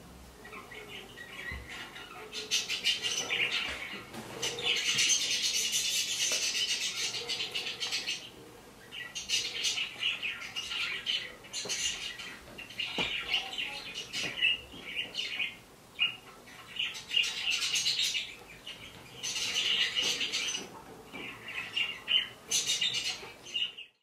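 Small parrots chirping and chattering in bursts, played back from a computer video, with the thickest, loudest stretch about five to eight seconds in.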